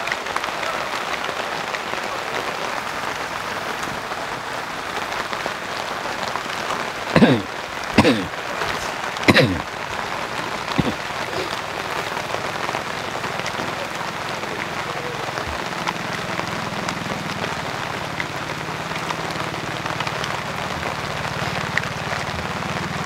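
Steady rain falling on surfaces, an even hiss. About seven to nine seconds in, three short, loud sounds each drop quickly in pitch, followed by a fainter one.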